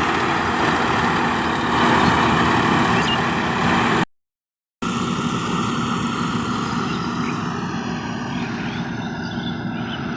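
Yanmar AG600A combine harvester's diesel engine and threshing machinery running steadily. The sound cuts out abruptly for under a second about four seconds in, then resumes.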